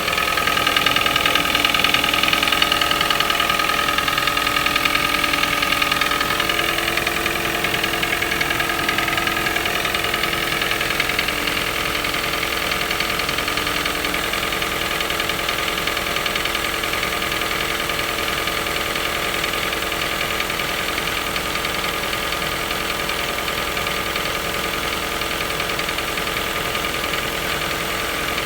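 Toyota 1NZ-FE 1.5-litre four-cylinder engine idling cold with a steady knock: a cold-start knock that the owner hears every morning and that goes away after a few minutes of warm-up.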